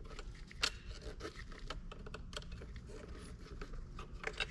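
Small metal pick scraping and clicking against a plastic overhead console, with a few sharp clicks, the loudest about half a second in.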